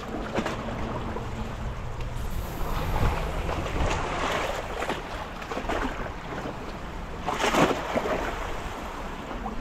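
Small waves lapping and sloshing against wooden pier pilings, with wind buffeting the microphone; the wash swells louder twice.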